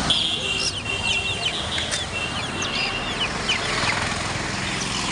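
A group of caged Java sparrows chirping: many short, quick calls with some held high notes, over a steady low background rumble.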